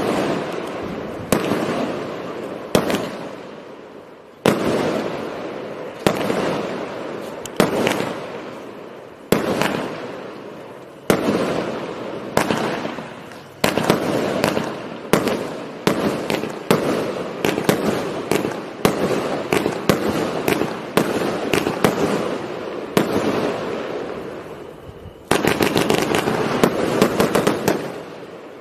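82-shot 1.4 compound firework cake firing aerial shots: sharp bursts about every one to two seconds, each followed by a fading tail, coming faster through the middle. From about 25 seconds in, a dense, unbroken run of loud bursts.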